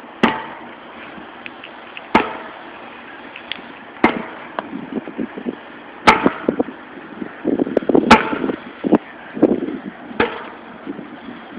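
Six sharp, heavy workout strikes, about one every two seconds, from weight being slammed or swung into the ground, with lighter clattering between the later strikes.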